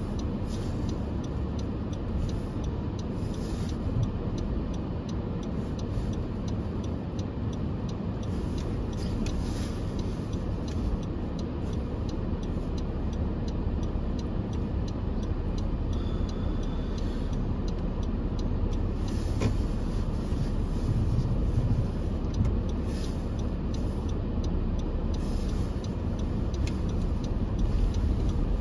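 Car heard from inside the cabin, engine running and then driving off: a steady low rumble of engine and tyres on a snowy road, with scattered light ticks, growing slightly louder in the second half.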